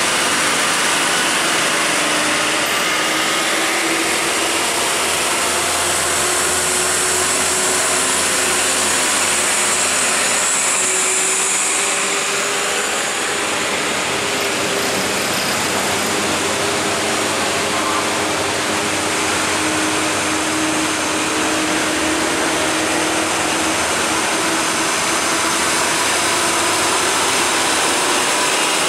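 Road traffic on a steep climb: diesel trucks' engines running as they pass, with a steady hiss of noise.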